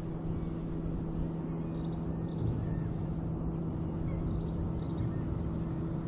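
A steady low mechanical hum with a rumbling background and a few faint high chirps.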